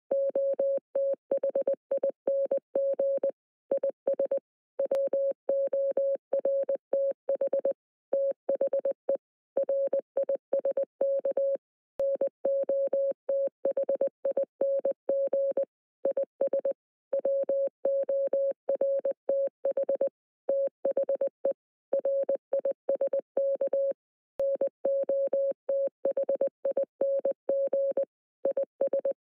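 Morse code sent as a single steady mid-pitched beep tone, keyed on and off in short and long beeps with gaps between letters and words, running continuously.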